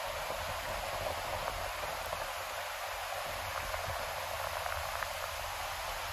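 River water rushing over rocks in shallow rapids: a steady, even rush.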